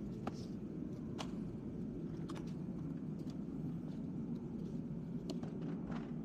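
Steady low background rumble with a handful of faint, scattered clicks and taps, typical of small parts being handled while ignition coils are fetched and readied.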